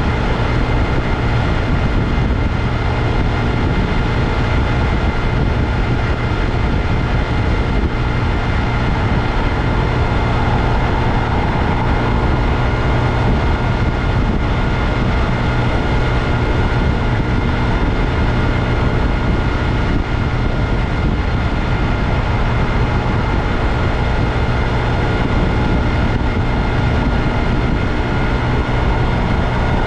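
2022 Honda Grom's single-cylinder engine running at a steady, unchanging pitch, over a heavy low rumble.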